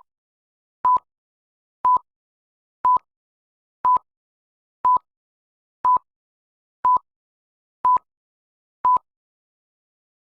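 Short electronic beeps at one steady pitch, one each second, nine times in a row.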